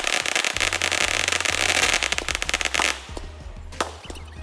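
Fireworks crackling: a dense run of rapid crackles and pops that stops about three seconds in, followed by a few separate bangs.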